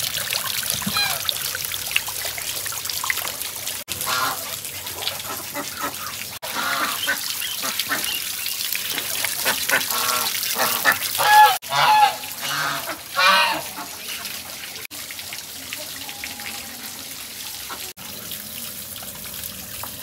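Water from a small tiled garden waterfall splashing and trickling steadily, with ducks quacking loudly several times in the middle.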